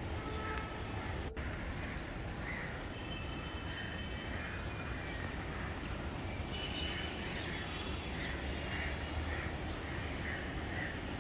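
Outdoor ambience: a steady background hiss with faint, evenly repeated chirps, somewhat under two a second, from about two seconds in.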